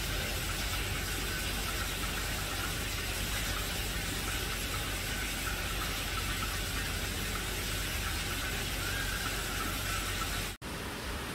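Steady, even hiss of background noise with a low hum and a faint wavering high tone. It cuts out for an instant near the end.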